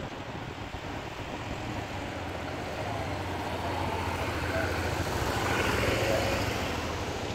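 Motorcycles riding past on the road. Their engine sound swells as one passes close about five to six seconds in, then fades.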